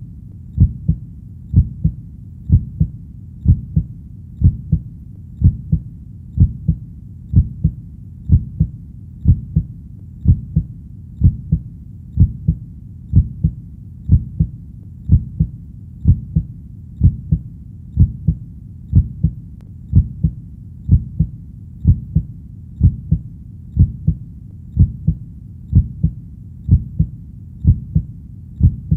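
Steady heartbeat: a low double thud (lub-dub) repeating evenly about once a second, over a constant low background rumble.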